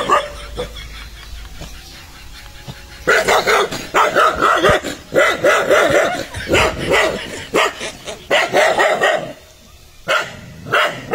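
Dogs barking aggressively in quick repeated barks at a dog's reflection in a mirror, the way a dog challenges what it takes for a rival dog. The barking breaks out about three seconds in and runs for several seconds, then comes twice more near the end.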